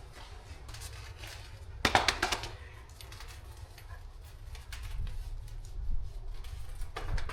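Packaging being cut open and handled: scattered clicks and rustles, with a loud cluster of sharp clicks about two seconds in, over a steady low hum.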